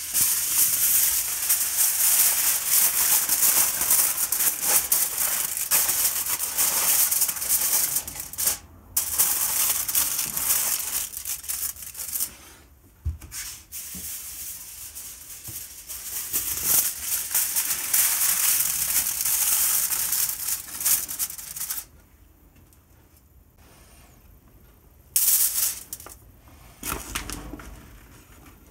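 Aluminium foil crinkling as it is crumpled and pressed into a frying pan, in long spells of rustling with short quieter gaps.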